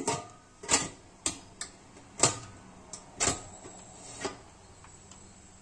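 Stainless steel pressure cooker lid being fitted onto the pot: a string of sharp metal clinks and clanks, about eight over the first four seconds, as the lid knocks against the rim and is pressed shut.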